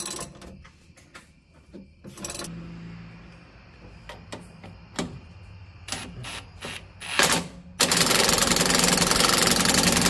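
Ridgid cordless impact wrench hammering a suspension bolt tight under a Jeep Wrangler JK: a short burst a little after seven seconds in, then a loud, continuous rattling run of about two and a half seconds near the end. Before it, scattered clicks and knocks of tools on metal.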